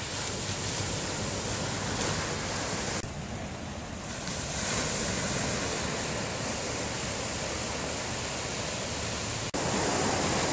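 Ocean surf breaking and washing up on a sandy beach: a steady rushing noise, with sudden shifts in level about three seconds in and shortly before the end.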